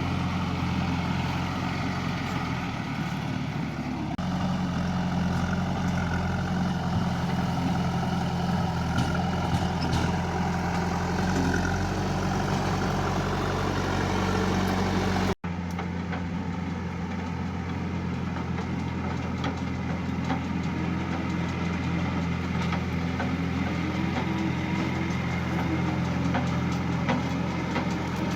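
Diesel engine of a JCB 3DX backhoe loader running at a steady speed, with a brief dropout about halfway through where the sound cuts out and picks up again.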